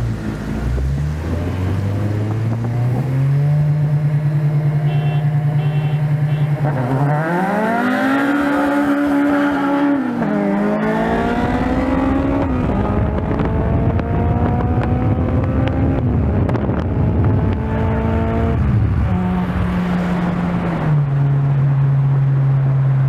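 Naturally aspirated Honda four-cylinder car engine accelerating hard, its pitch climbing and then dropping sharply at each of several gear changes.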